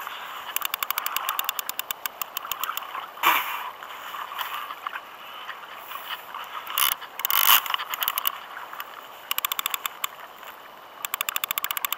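Big multiplier fishing reel clicking fast in runs of a second or two while a heavy fish, possibly a shark, is being played, with a couple of brief rushing noises in between.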